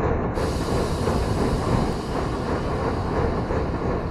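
H0-scale model freight train running past on its track: a steady rolling noise of small wheels on metal rails and the locomotive's motor.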